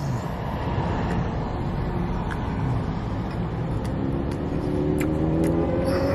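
Steady low vehicle rumble with a few light clicks of a plastic fork on a takeout container. A low, drawn-out hum joins in during the second half.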